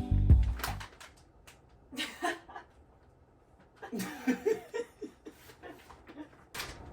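Background music cutting off about a second in, followed by quiet laughing and chuckling in short bursts.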